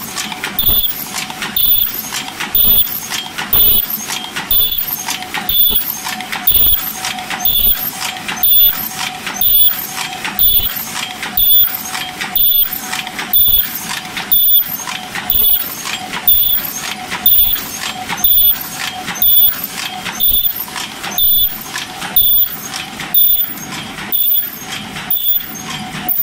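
Open-cam paper cup forming machine running at 70 cups a minute on 12 oz cups: a steady, rhythmic mechanical clatter with a sharp clack and a short high-pitched note on each cycle, a little over once a second.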